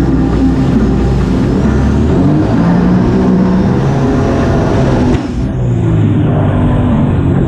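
Personal watercraft engine running hard, its pitch shifting as the craft banks through a turn, with water splashing. The sound dulls briefly about five seconds in.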